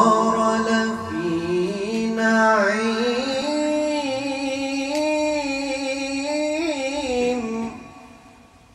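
A man's voice reciting the Qur'an in Arabic in the melodic, drawn-out tajwid style: one long held phrase whose pitch slides and wavers between notes. It fades out about three-quarters of the way through, leaving a quiet pause.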